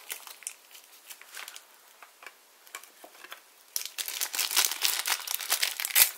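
Plastic blind-bag packaging being handled: a few light rustles and clicks, then steady crinkling from nearly four seconds in, with a small knock near the end.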